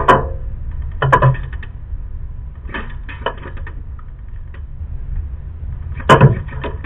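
Quick bursts of sharp clicks with a metallic rattle, four times: at the start, about a second in, near three seconds and, loudest, about six seconds in, over a low steady rumble.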